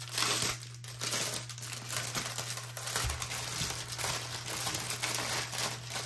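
Large clear plastic bag of bagged diamond-painting drills crinkling as it is handled and pulled open.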